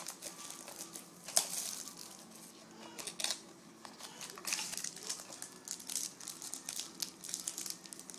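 Plastic wrapping crinkling and tearing as a sealed trading card box is opened, with irregular sharp crackles, the loudest about a second and a half in.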